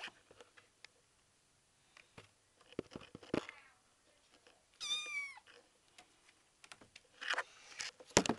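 A five-week-old kitten meows once, about five seconds in: a short, high mew that falls in pitch at its end. Around it are light scratchy scrabbling noises and clicks as the kitten climbs over a wooden board, with a sharp knock near the end.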